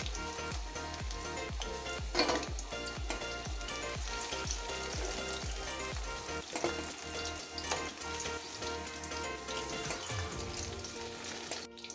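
Jackfruit pieces deep-frying in hot oil, sizzling steadily as a spatula stirs and lifts them out of the pan, with a sharp knock about two seconds in.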